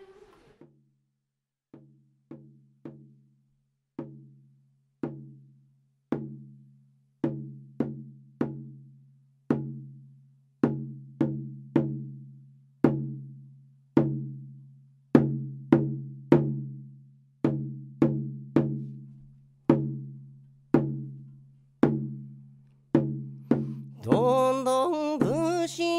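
Recorded Okinawan shima-uta folk song beginning: a slow, uneven run of single percussive strikes, each a low ringing note that dies away, growing louder as it goes. Singing voices come in near the end.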